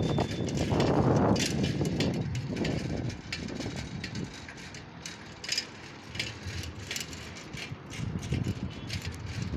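Wind buffeting the microphone for the first two seconds, then quieter ride noise with a run of light mechanical clicks, a few a second, through the rest.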